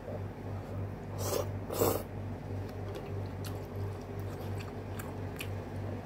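A man chewing a mouthful of food, with many small wet mouth clicks and two louder brief noises about a second and two seconds in.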